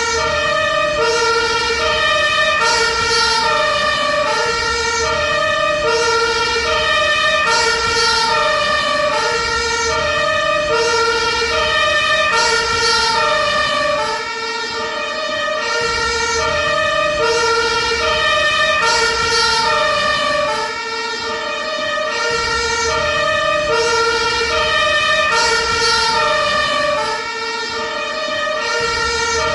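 Ambulance two-tone siren sounding steadily, switching between a high and a low note about every two-thirds of a second, over a low vehicle rumble.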